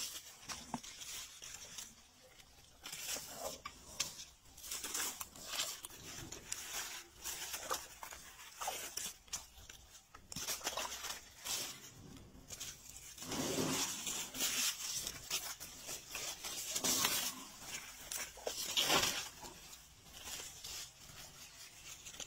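Leaves and branches rustling with small cracks of twigs as an Asian elephant pushes its head and trunk through dense overhanging foliage, in irregular bursts. The loudest bursts come a little past halfway and again toward the end.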